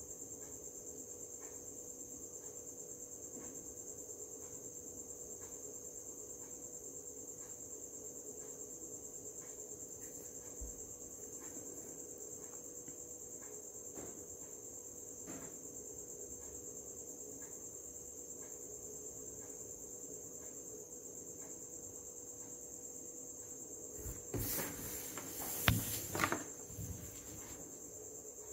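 A faint, steady high-pitched trill runs throughout over a fainter low hum, with scattered faint clicks. About three-quarters of the way in, a few seconds of louder rustling and knocking handling noise.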